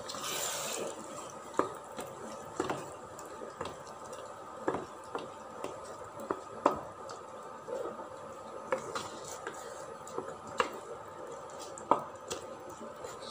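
Wooden spatula stirring a thick mix of rice, curd and masala in a pot: soft squelching and scraping, with sharp irregular taps of the spatula against the pot every second or two.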